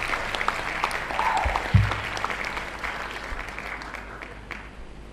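Large seated audience applauding, the clapping fading away over the last couple of seconds, with one brief low thump about two seconds in.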